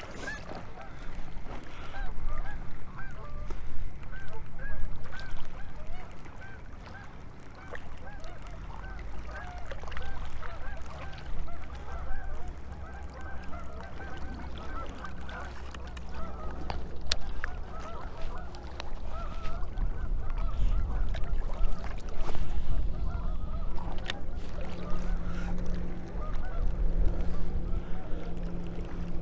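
A flock of birds calling continuously, many short overlapping calls, over a low steady rumble.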